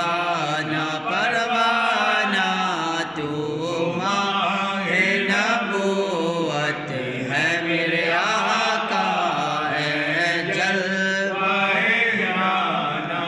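A single man's voice reciting an Urdu naat unaccompanied, drawing out long, wavering melodic phrases.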